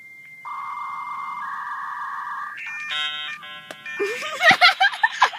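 Electronic tones: a thin high beep, then a steady lower tone that steps up in pitch about two seconds in, then a quick run of short chord-like beeps around three seconds in. Near the end a rising warble breaks into loud, sharp crackles.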